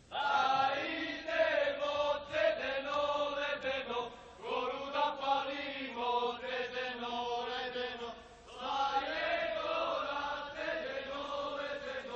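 Men's voices singing a Serbian folk song in three long, drawn-out phrases, with short breaks about four seconds in and again about eight seconds in.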